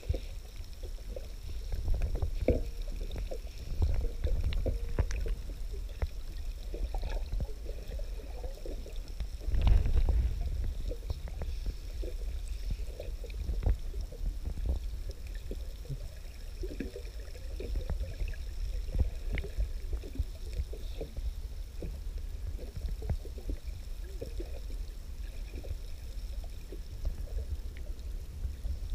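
Muffled water noise picked up by a camera held underwater: a low rumble with scattered clicks and crackles, swelling louder about two, four and ten seconds in.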